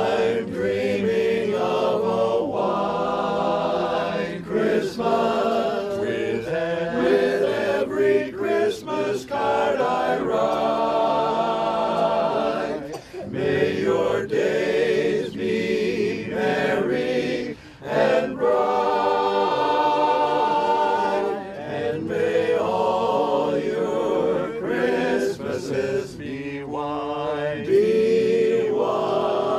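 Men's chorus singing a cappella, with two brief breaks between phrases near the middle.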